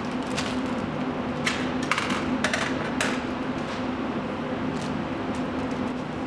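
Hand tools at work on screws: a handful of sharp clicks and knocks, bunched about one and a half to three seconds in, over a steady hum.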